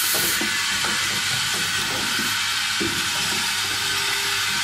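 Automated O-ring assembly machine running: a steady hiss of air with quick, irregular clicks and knocks from its pneumatic and mechanical moving parts, and a short rush of air hiss right at the start.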